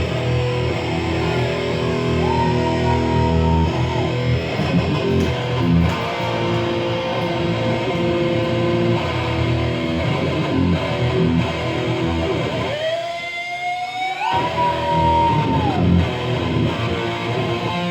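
Electric guitar playing held, ringing chords and notes with little or no drumming, with a quick upward pitch slide about thirteen seconds in.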